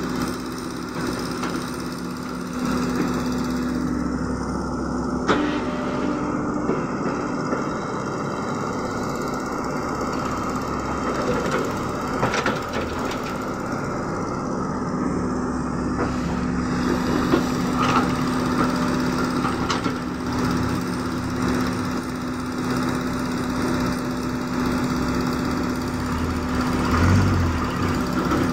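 Caterpillar E120B excavator's diesel engine running steadily as it digs, with a few short knocks along the way.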